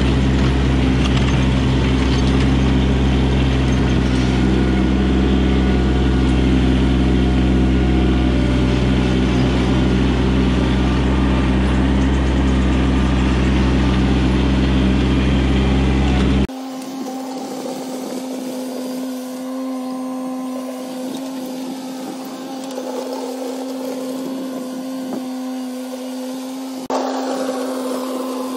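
Kubota B2601 compact tractor's three-cylinder diesel engine running steadily under load, heard close up. About halfway through the sound cuts to the tractor heard from farther off: quieter and thinner, with one steady drone.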